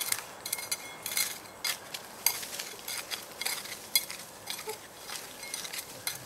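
A small metal hand trowel scraping and digging into soil: an irregular run of short scrapes and clinks, several a second.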